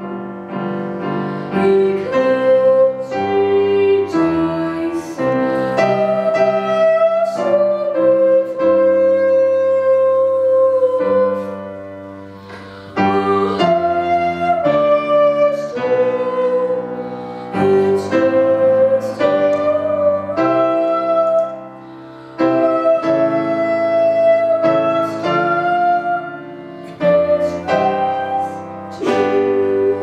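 A boy singing a solo in long, held notes into a handheld microphone, with grand piano accompaniment. The voice drops out twice, leaving the piano briefly between phrases.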